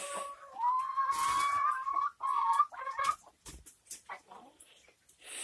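Chickens calling in a coop. One long drawn-out call lasts about a second and a half, then a few shorter clucking calls follow, then scattered faint clicks.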